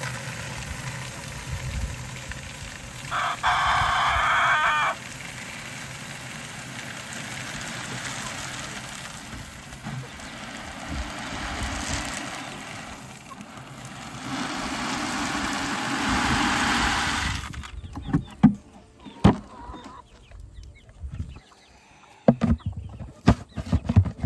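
A rooster crows once, a loud call lasting under two seconds, a few seconds in, over a steady outdoor background with chickens about. Near the end come a string of sharp knocks and clatters.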